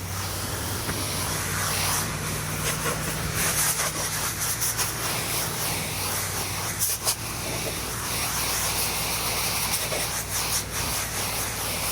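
Pressure washer spraying water, a steady hiss, over the steady low hum of the machine running.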